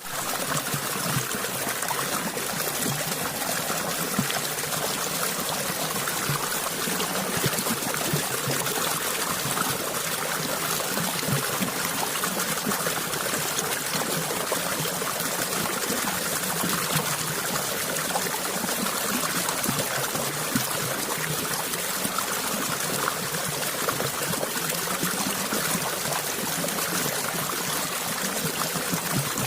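Water flowing and trickling steadily, a continuous even rush with small splashing detail.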